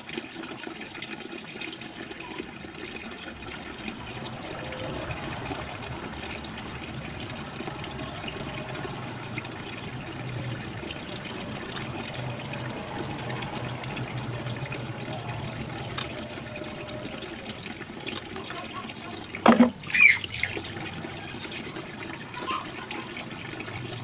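Steady sound of water throughout, with two sharp knocks in quick succession near the end.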